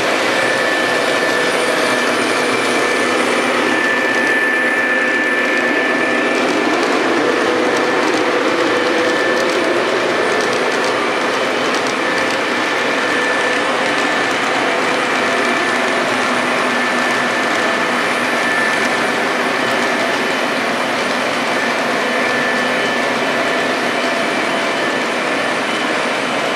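Model diesel locomotives and freight cars running on layout track: a steady mechanical rumble from motors and wheels, with a thin steady whine over it.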